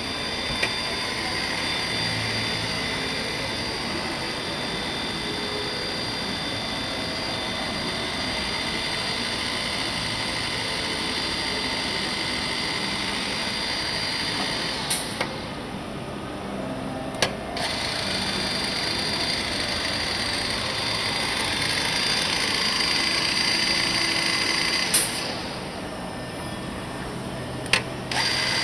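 CNC router's 9 kW HSD spindle running and cutting solid wood: a steady high whine over cutting noise. It eases off twice for a couple of seconds, and each lull ends with a sharp click.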